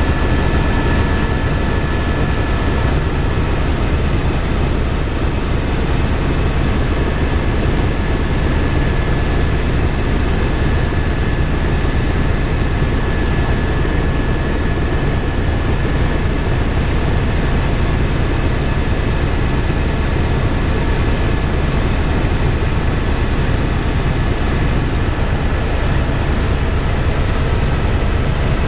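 Helicopter in flight: steady rotor and engine noise with a thin high whine held over it.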